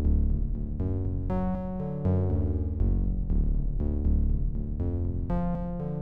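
Background music: a synthesizer or keyboard tune, with notes struck about every half second over held low bass notes.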